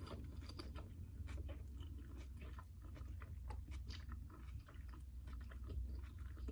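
Faint close-up chewing of a toasted Subway melt sandwich: a run of small, irregular wet clicks and light crunches from the mouth.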